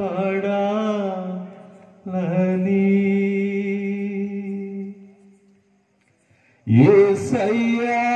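A single voice singing a Telugu Christian devotional song without instruments, in long drawn-out notes: two phrases, a break of about a second and a half, then a new phrase that swells and rises in pitch near the end.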